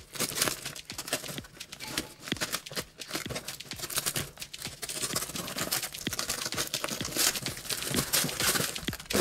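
Tape-wrapped plastic parcel packaging being cut open with scissors and torn back, crinkling and crackling in many short, sharp, irregular bursts.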